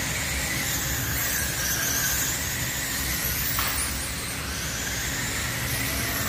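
Several radio-controlled midget race cars lapping a dirt oval: a high-pitched whine from their motors and drivetrains, with several pitches rising and falling as the cars speed up and pass.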